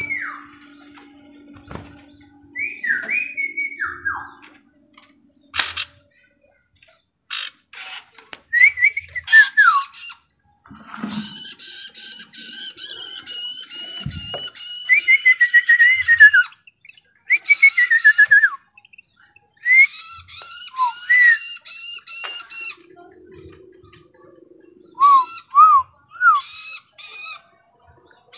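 A sirtu, a small caged songbird, calling and singing: short whistles that slide down in pitch, then longer spells of fast, repeated chattering notes. A few sharp clicks come between the phrases.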